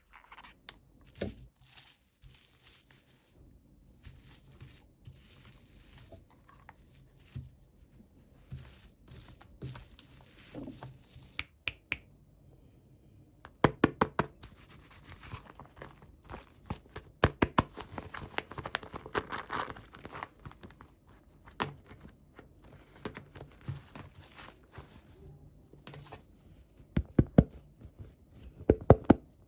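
Toy packaging being handled and torn open: crinkling and tearing with clusters of sharp clicks and taps.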